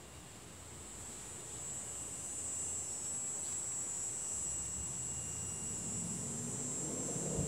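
A high, steady insect buzz that swells louder over the first couple of seconds and then holds, over a faint low rumble.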